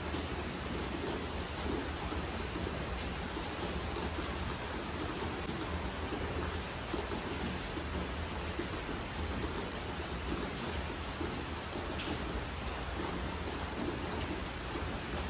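Steady rain falling, a constant hiss with a few faint drip ticks.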